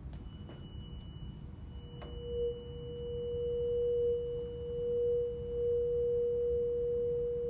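A 480 Hz tuning fork is struck about two seconds in with a sharp tap, then rings with a steady pure tone. The tone grows louder and swells up and down as it is held over a closed-end glass resonance tube whose air column is brought to quarter-wave resonance.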